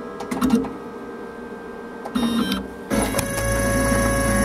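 Small CNC engraving machine running: its motors make a few short whirring moves, then about three seconds in a steady hum with a high whine sets in as the engraving cutter comes down onto the copper penny.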